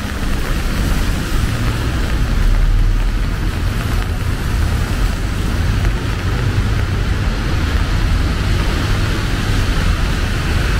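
Steady hiss of rain over the low rumble of city traffic.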